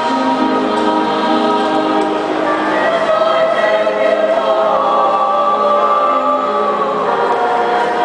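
Mixed choir singing, holding long chords in several parts that shift to new chords a few times.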